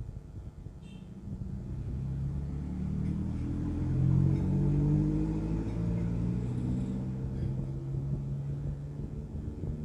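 A motor vehicle's engine rumble that swells up about two seconds in, is loudest around four to five seconds in, then slowly eases off, as a vehicle passing by.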